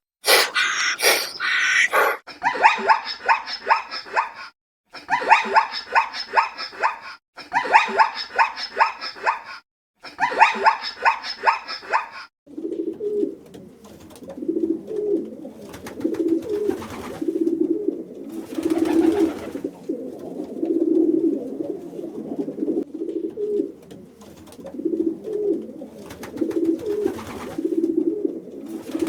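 Animal calls in two parts. First come several short clips of rapid, pulsed, higher-pitched calls, each cut off abruptly. From about halfway, a long run of low, repeated cooing calls follows.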